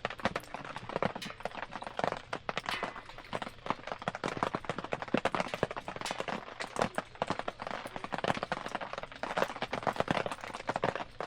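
Wood campfire crackling and popping: a dense, irregular run of sharp snaps.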